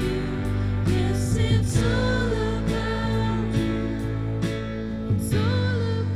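A live church worship band playing a song, with women singing the melody over electric guitar, bass and keyboard.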